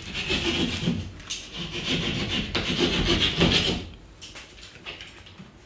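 Rasping, scraping strokes of a hand tool working wood, in uneven strokes for about four seconds, then quieter.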